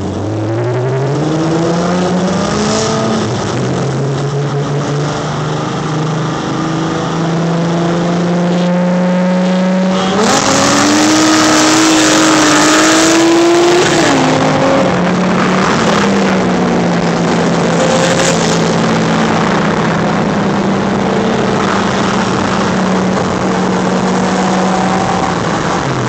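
Nissan Maxima V6 engine pulling hard in a race, its revs climbing and then dropping at gear changes about 3 and 14 seconds in, holding steady in between. A loud rush of wind and road noise comes in about 10 seconds in and eases after the second shift.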